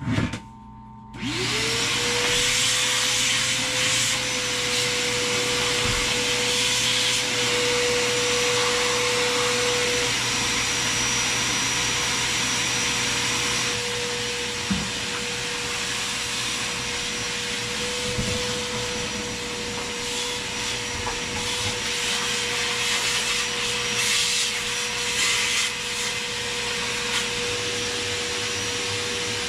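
Vacuum cleaner switched on about a second in, its motor whine rising and settling into a steady run with a constant rushing hiss of suction, used to vacuum dog hair out of a boat's engine compartment.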